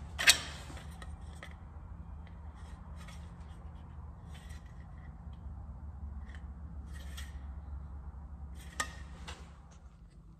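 Hand snips cutting sheet metal: a sharp snap just after the start, then short scratchy cuts every second or two and another snap near the end, over a steady low hum.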